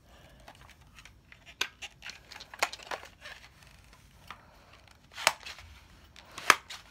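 Plastic clicks and clacks of a brand-new Nerf Modulus shotgun attachment's pump action being worked by hand. A few scattered clicks come first, then two loud clacks in the second half. The pump is stiff from being new.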